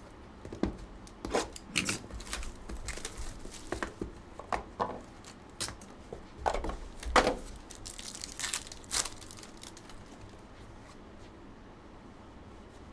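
A cardboard trading-card hobby box being opened and its packaging and cardboard insert handled: a run of sharp rustles, scrapes and taps that stops about ten seconds in.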